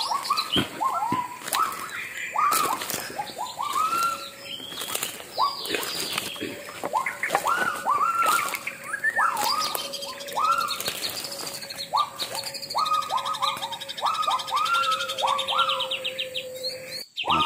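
Forest soundscape of wild animal calls: a long series of rising, whooping notes, a few a second, with crackles of footsteps on dry leaf litter. About halfway through, a steady thin tone joins in, and later a fast high trill.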